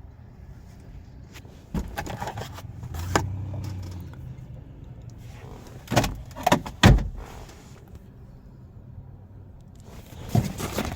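Handling noises in and around a parked car: a string of clunks and knocks, the loudest about seven seconds in, with a short low hum around three seconds in and rustling near the end.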